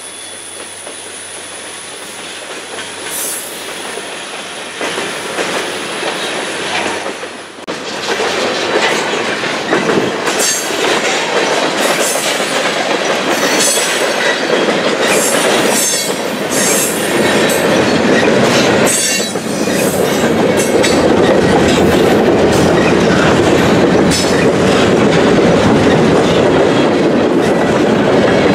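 Freight train of mostly empty boxcars rolling past close by: a steady rumble of steel wheels on rail with rapid, repeated clicking over the rail joints. It gets much louder about eight seconds in, as the cars pass right beside.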